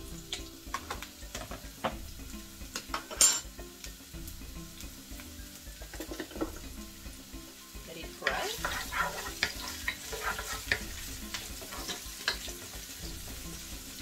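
Sliced onion sizzling in hot oil in a wok, stirred with a utensil that scrapes and clicks against the pan. There is a sharp knock about three seconds in, and the sizzle grows louder about eight seconds in.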